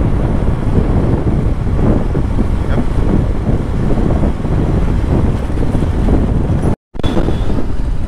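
Wind rushing over the microphone mixed with a motorcycle's engine and tyre noise while riding at speed. The sound cuts out completely for a split second near the end.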